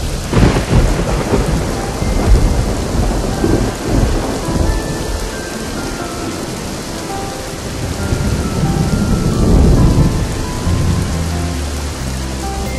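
Heavy rain falling as a steady hiss, with rolling thunder rumbling loudest about half a second in and again around nine to ten seconds.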